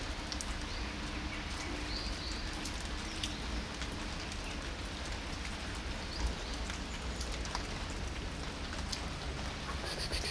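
Steady rain falling on wet asphalt: an even hiss with a few scattered drip taps.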